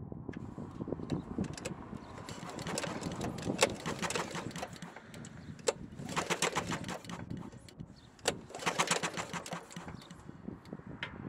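Recoil pull starter, taken from a Predator 301, spinning over a Honda GX big-block engine with its spark plug out, pulled three times: each pull is a rapid run of clicks over a rattling whir. The engine is being cranked to check for spark.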